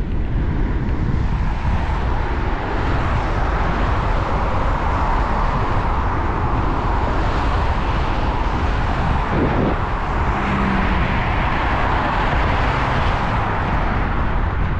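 Wind buffeting a cap-mounted GoPro's microphone, under the hiss of passing road traffic that builds about a second in and dies away near the end.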